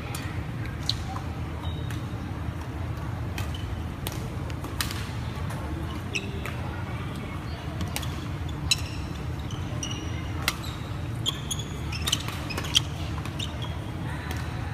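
Badminton rally: sharp smacks of rackets hitting the shuttlecock, a second or two apart, with the loudest near the end. Shoes squeak briefly on the wooden court floor, over a steady low hum of the hall.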